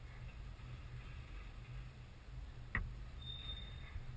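Freight train of autorack cars rolling past, a steady low rumble. There is a single sharp click a little under three seconds in, and a brief faint high whine just after it.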